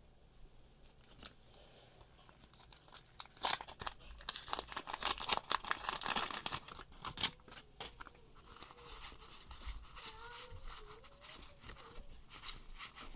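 Wax-paper wrapper of a trading card pack crinkling and tearing, with cards being handled. The crinkling is densest about three to eight seconds in, then settles to quieter rustling.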